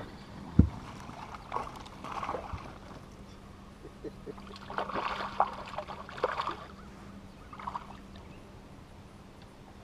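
A hooked bass fighting at the surface next to a fishing boat: a sharp knock about half a second in, then several short bursts of splashing, over a faint steady hum.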